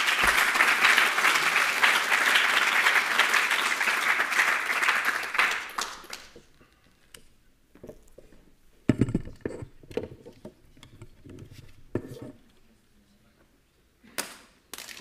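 Audience applauding, the clapping dying away about six seconds in. Then a few scattered knocks and clunks.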